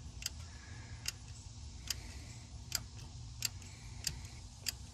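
Faint, sharp clicks, about one every three-quarters of a second, over a low steady hum.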